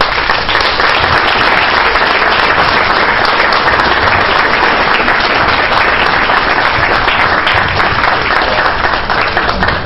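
An audience applauding: steady clapping from many hands.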